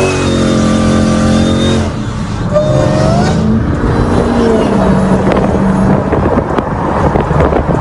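Motor vehicle engine running, its pitch holding steady for about two seconds and then rising and falling as it revs.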